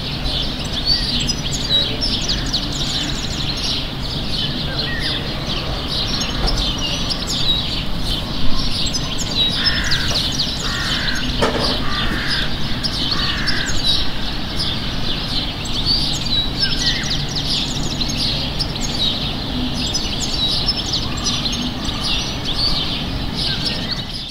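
Small songbirds chirping continuously, with a crow cawing about four times around the middle, over a steady low hum of city background. A single sharp knock stands out about eight seconds in.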